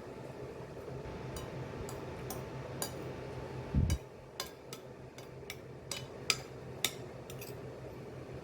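Kitchen clatter: a scatter of light clinks and taps of dishes or utensils, with one heavier low thump about four seconds in, over a steady hum.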